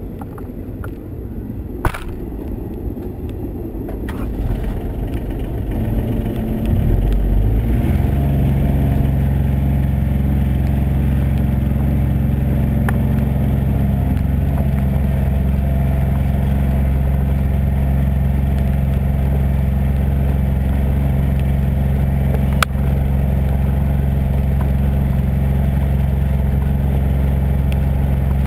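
John Deere Gator 855D's three-cylinder diesel engine running as the vehicle drives over a dirt track, heard close to the front-left wheel. For the first several seconds it is a rough, uneven rumble with a couple of knocks; about seven seconds in it grows louder and settles into a steady drone at constant pitch. There is one sharp click near the end.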